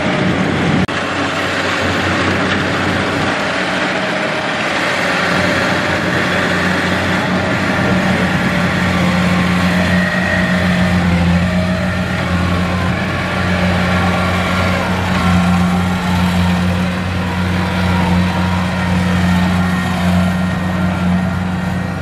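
Kubota DC70 combine harvester's diesel engine running steadily under load while the machine harvests and drives through soft mud, with a constant low hum.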